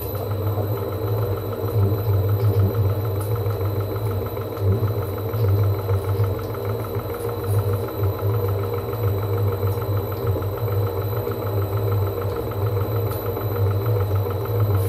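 Holbrook C8 metal lathe running with a steady low hum and machine clatter, with a thin, steady high-pitched squeal from the high-speed steel tool cutting thin-walled steel.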